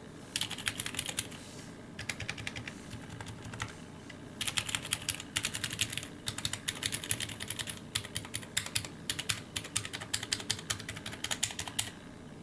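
Typing on a Drop Alt mechanical keyboard with Sakurio 62g switches and PBT keycaps: fast runs of keystrokes in bursts, with brief pauses between them.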